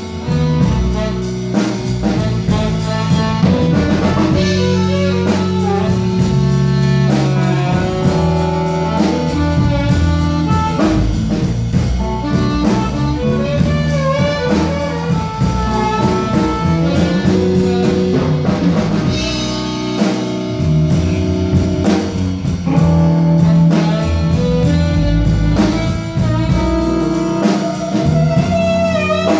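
Live blues band playing: electric guitar, saxophone, bass guitar and drum kit together, with a steady drum beat.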